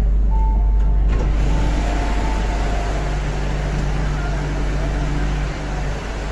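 MTR Q-train electric multiple unit pulling out of a station, with a low rumble and rush of wheels on rail that thickens about a second in, and faint steady electric tones from its traction equipment.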